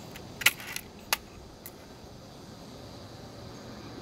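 Air rifle being cocked and loaded: a few sharp clicks in the first second and a half, the loudest about half a second in, over a steady faint hiss.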